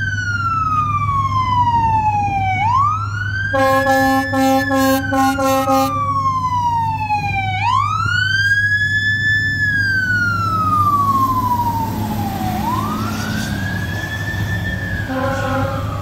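Fire engine siren winding slowly down and back up in long repeating cycles, with a run of short horn blasts a few seconds in and another brief horn near the end. A low engine hum runs underneath.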